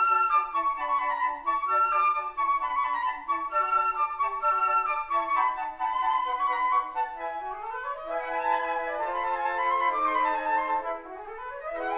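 Four concert flutes playing together in classical-style chamber music, several parts moving at once. In the second half the parts climb in upward scale runs, twice.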